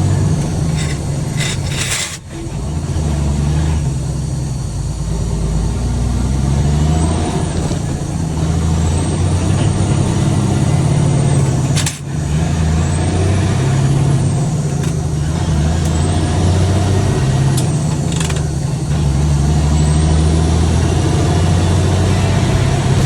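Peterbilt semi truck's diesel engine pulling away and working up through the gears. The engine note steps up and down with each shift, and a high whistle climbs with each pull. The sound breaks off briefly about 2 seconds in and again about 12 seconds in.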